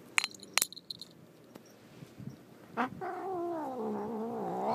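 A domestic cat giving a long, low, wavering yowl of about two seconds that starts near the three-second mark and falls slowly in pitch: an angry cat. Two sharp clicks come in the first second.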